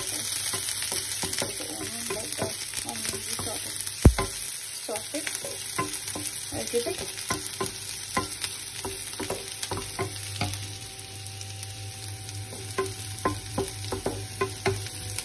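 Chopped onion, ginger, garlic and green chili sizzling in oil in a frying pan while a wooden spatula stirs them, with repeated light taps and scrapes against the pan. One sharp knock about four seconds in is the loudest sound.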